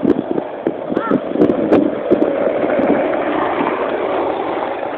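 Skateboard wheels rolling fast over asphalt with wind on the microphone: a steady rushing noise with scattered clicks and knocks from the road surface.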